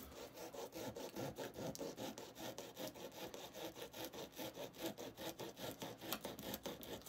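Small knife sawing back and forth through a crisp wafer candy cone with a marshmallow top, a faint, even run of scraping strokes.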